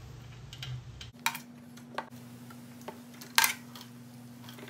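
Several sharp metallic clicks and taps as the steel oil drain plug with its washer is threaded back into the engine crankcase by hand. The loudest is about three and a half seconds in, over a faint steady low hum.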